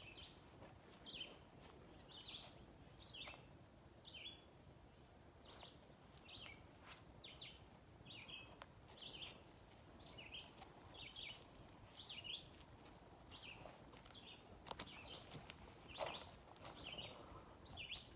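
A songbird's short high chirps repeated every half second or so, faint over a quiet outdoor background, with a few soft knocks, the sharpest near the end.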